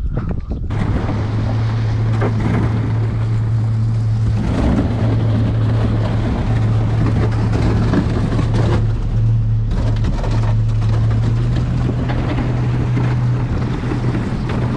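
A motor engine running steadily with an even low hum and a rushing noise over it, starting abruptly about a second in.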